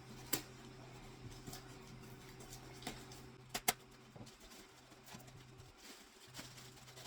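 Scattered light clicks and taps of a boxed statue and its packaging being handled, over a steady low hum; two sharper clicks come close together about three and a half seconds in.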